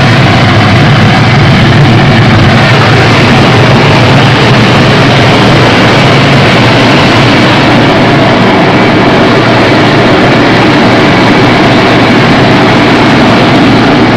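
Electric rice milling machine running steadily with rice pouring through it: a loud, continuous mechanical drone that does not change.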